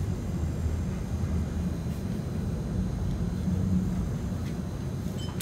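Cabin sound of a UTDC CLRV streetcar running along the track: a steady low rumble from the wheels and running gear, with a faint click near the end.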